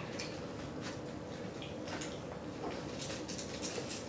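Faint chewing and lip-smacking of a mouthful of burger: a scatter of small soft clicks at an irregular pace.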